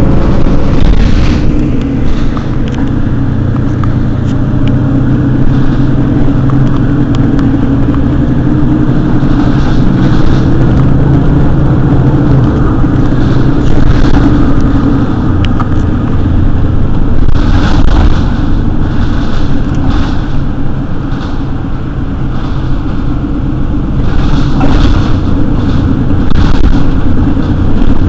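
Mercedes-Benz Citaro city bus running, its engine giving a loud, steady pitched hum that turns rougher and less even about halfway through.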